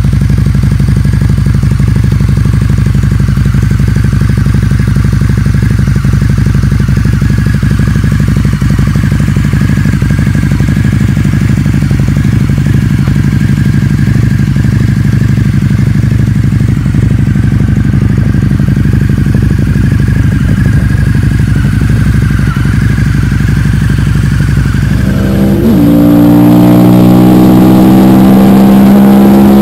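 A custom Harley-Davidson V-Rod's V-twin idling steadily through its short twin exhaust. About 25 seconds in, it gives way to a different motorcycle running at high revs under hard acceleration.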